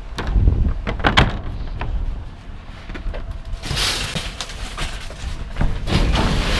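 Several sharp knocks and clunks, then a burst of rustling and scraping about three and a half seconds in: objects being handled and moved about in a metal dumpster.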